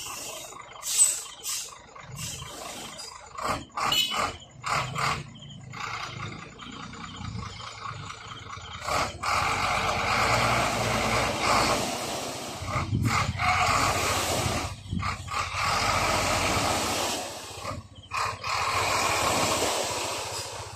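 Dump truck unloading sand: the diesel engine runs under a low rumble while the load slides off the raised tipper bed. A few sharp knocks come in the first seconds, then from about nine seconds in a steady rushing noise as the sand pours out, with short breaks.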